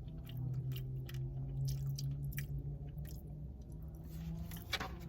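Close-up chewing of a mouthful of rice and chicken bowl, with scattered wet mouth clicks and smacks, over a steady low hum.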